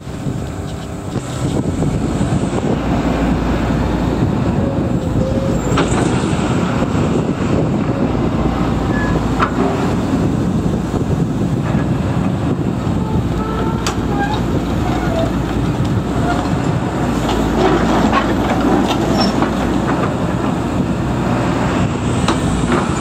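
Hyundai 160LC-7A tracked excavator's diesel engine running under hydraulic load as the boom lifts the bucket and thumb. The sound steps up about a second and a half in, with a few sharp clanks and short squeaks along the way.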